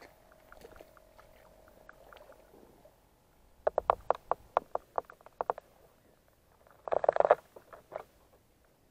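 Handling noise picked up on the hull of a Kyosho Wave Master RC boat as it is carried and set into the water. A faint steady tone at first gives way to a quick run of knocks and clicks, then a brief splash-like rush about seven seconds in as the hull goes into the water.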